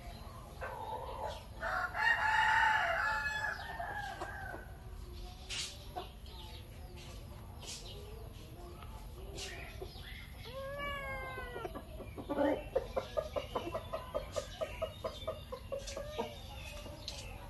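Animal calls: one long, loud pitched call about two seconds in, a short sliding call near the middle, then a quick run of short repeated calls, several a second, in the second half.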